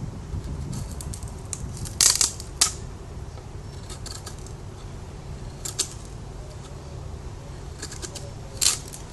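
Spyderco Paramilitary 2 folding knife with an S30V blade cutting, giving a handful of short, crisp cutting strokes. The loudest strokes come about two seconds in and again near the end, over a steady low hum.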